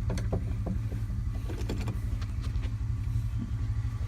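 An engine idling with a steady low drone, with scattered light clicks and knocks of handling over it.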